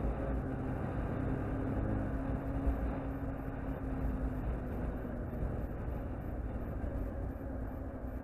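Inline-four sportbike riding along at road speed, heard from a camera mounted on the bike: a steady rush of wind over the microphone with a low rumble, and the engine's tone fading out within the first couple of seconds.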